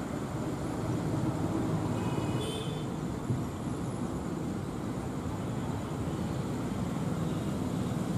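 WDM3D ALCO diesel locomotive's 16-cylinder engine chugging under load as it pulls a passenger train away, a steady low rumble.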